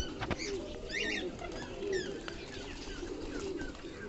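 A flock of fancy pigeons cooing, a run of low wavering coos one after another, with short high chirps and a few faint clicks over them.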